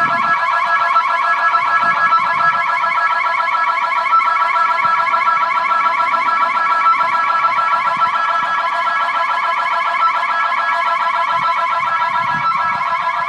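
Building security alarm sounding continuously: a loud, steady, rapidly warbling tone made of several stacked pitches.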